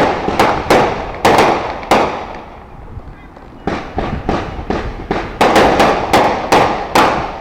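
A string of firework bangs going off one after another, each with a short decaying tail. About five in the first two seconds, a pause of a second and a half, then a quicker run of about three a second.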